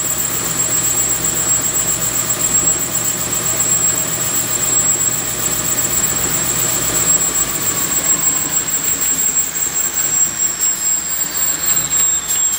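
SCMI Sandya 10 wide belt sander running, a loud steady machine noise with a high-pitched whine. About halfway through, its low hum drops away and a second whine falls slowly in pitch as part of the machine spins down, while the high whine keeps going.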